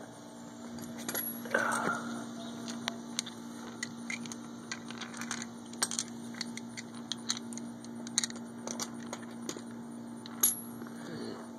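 Chrome lug nuts clinking against each other and the concrete as they are picked up by hand: many small, scattered metallic clicks over a steady low hum.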